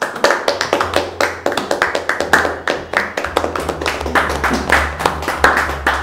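A small group of people clapping their hands in applause, with quick, uneven claps throughout.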